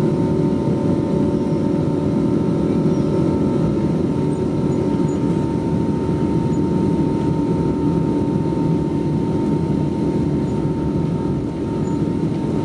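Boeing 777-200 jet engines at takeoff thrust, heard inside the cabin from a window seat beside the engine: a loud, steady rush of engine noise with a steady high whine running through it.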